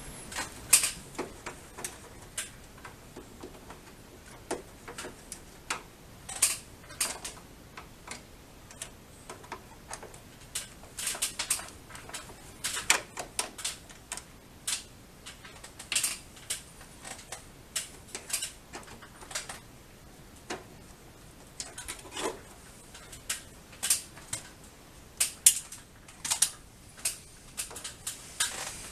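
Irregular plastic clicks and knocks as the casing of a Samsung split air conditioner's indoor unit is handled and taken apart by hand.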